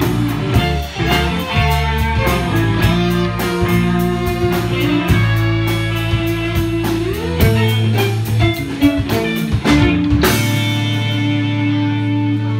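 Live band with electric guitars, bass, drums and fiddle playing the closing bars of a song. About ten seconds in, the drumming stops on one final hit and a held chord rings out.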